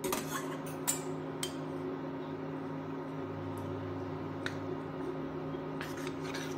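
Metal spoon stirring custard powder into milk in a small steel bowl, clinking against the bowl a few times, with more clinks near the end. Under it runs the steady hum of an induction cooktop heating a pan of milk.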